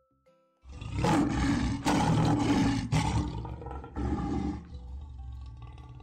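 A lion roaring: a long roar in several pulses starting just under a second in, a shorter one about four seconds in, then fading away.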